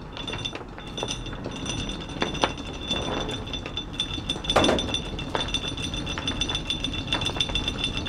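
Steel anchor chain clinking and clanking irregularly as it is pulled out hand over hand, link by link, over a steady high-pitched whine.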